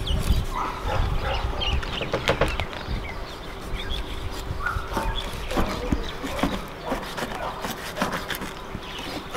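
Fillet knife cutting through raw fish and scraping and tapping on a plastic cutting board in short irregular strokes, over a steady low hum.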